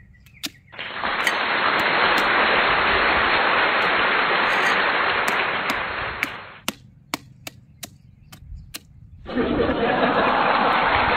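A hammer striking and cracking chunks of frozen water-balloon ice on concrete: a run of sharp knocks, heard most clearly alone about seven to nine seconds in. Over most of the rest runs a long, steady wash of applause.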